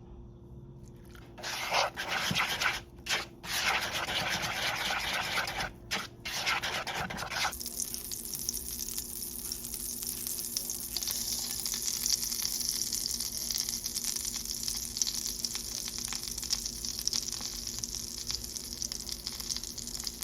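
Pancake batter frying in a hot pan, a steady sizzling hiss from about a third of the way in. Before that comes a louder, broken rushing noise for several seconds, stopping and starting a few times.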